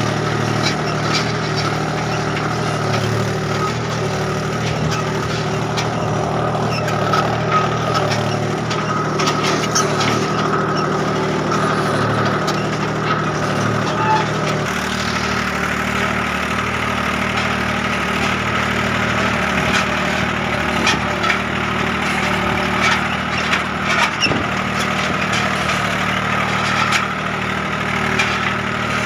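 Mahindra tractor's diesel engine running steadily, with scattered knocks and rattles. The engine note shifts about halfway through.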